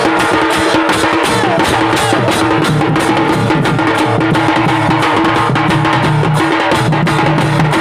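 Large two-headed barrel drum (dhol) beaten with a stick in a fast, loud rhythm, with small hand cymbals clashing along, over a steady held tone.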